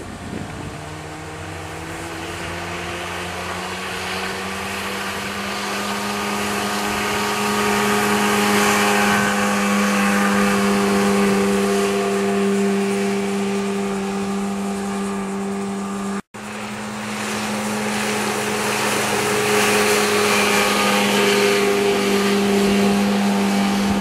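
A 50 hp Johnson two-stroke outboard running at speed on a passing 15-foot boat, a steady drone that grows louder over the first several seconds as the boat comes closer. It breaks off for a split second about two-thirds through, then carries on loud as the boat runs past again.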